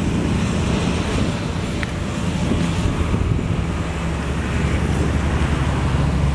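Jet engine noise of a Boeing 787-8 airliner passing low overhead on final approach: a loud, steady rumble and rush that swells slightly near the end.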